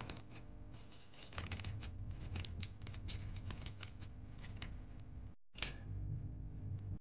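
Paper butter-stick wrapper crinkling and crackling as it is peeled open by hand, with a quick run of small crackles and a sharper one near the end, over a steady low hum.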